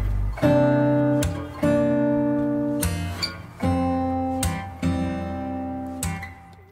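Background music: an acoustic guitar strumming slow chords, each left to ring, dying away near the end as the song finishes.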